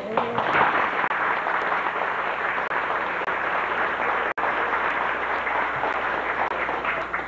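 Audience applauding, fading near the end.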